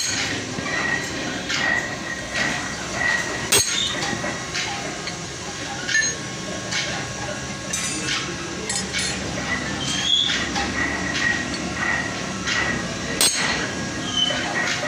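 Hammer striking a steel drift on a tapered roller bearing's cage seated in its outer race, with steel bearing parts clinking as they are handled. A few sharp metallic strikes stand out: one right at the start, one about three and a half seconds in and one near the end.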